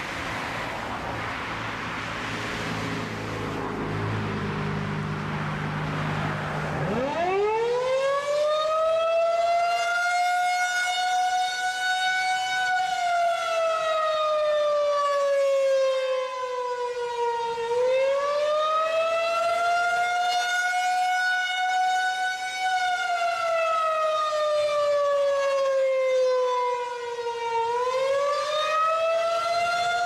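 Federal Signal 2001-SRN rotating electromechanical warning siren winding up sharply about seven seconds in, after a low rumble, then sounding the attack signal: a loud wail whose pitch slowly rises and falls, each swing lasting about five seconds.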